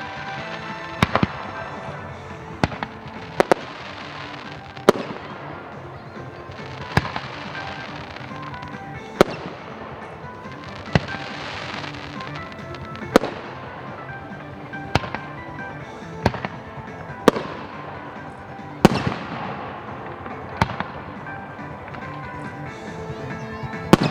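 Aerial fireworks going off, a sharp report every second or two, some followed by a crackling hiss, over steady background music.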